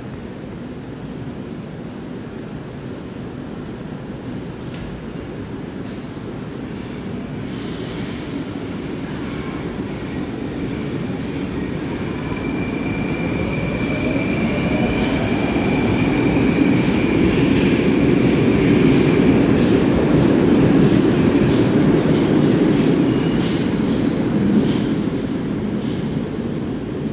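81-765.3 'Moskva' metro train pulling out of the station and accelerating away. Its electric traction drive gives a whine that rises in pitch over rail and wheel rumble. The noise swells as the cars pass close by and then fades as the train leaves.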